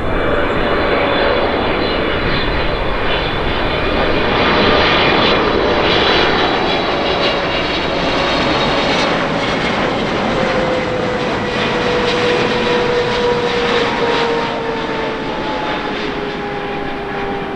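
Airliner's engines during landing: a steady, loud roar with a whine that slowly drops in pitch.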